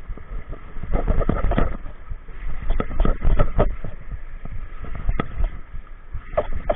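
Wind buffeting the microphone and water washing around shore rocks, with scattered clicks and knocks as a Shimano Stradic spinning reel is cranked and the rod handled; the rumble is loudest about one to four seconds in.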